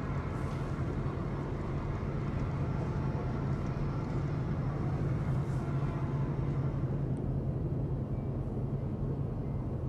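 HO scale model train running along the layout track: a steady low rumble with an even hum.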